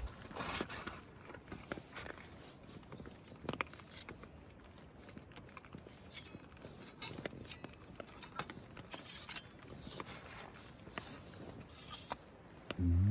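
Rustling, scraping and small clinks of camping kit being handled and unpacked, with scattered short clicks. A loud tone that rises and then falls in pitch starts right at the end.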